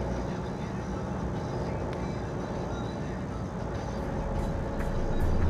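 Steady road and engine noise heard from inside a car cruising at highway speed, getting louder near the end.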